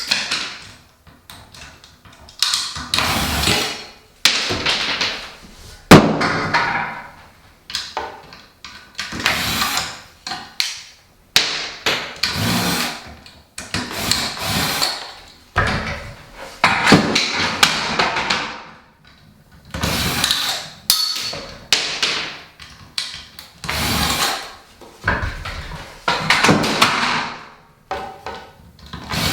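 Cordless drill/driver backing screws out of ceiling fan blades, running in many short runs of a second or two each with brief pauses between.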